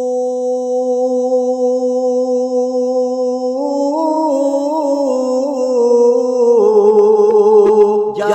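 A man's voice chanting a line of Punjabi verse. He holds one long steady note, then sings a wavering, ornamented run about halfway through that settles onto a lower held note near the end.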